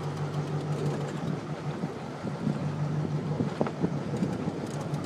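Sportfishing boat's engine running with a steady low hum, under a constant rush of wind and water noise.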